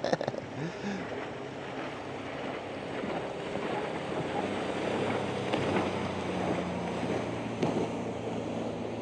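Small motorboat's engine droning steadily as it passes on the inlet, growing a little louder about halfway through, over the wash of water and wind noise on the microphone.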